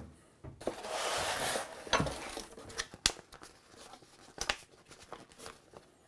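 Cardboard box being opened and its paper instruction sheet handled: a rush of cardboard sliding and scraping lasting about a second, then a few sharp clicks and light paper rustling.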